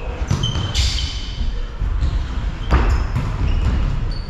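Volleyball rally: sharp hand-on-ball hits about a second in and again near three seconds in, with short squeaks of shoes on the wooden court floor and running footsteps, echoing in the large hall.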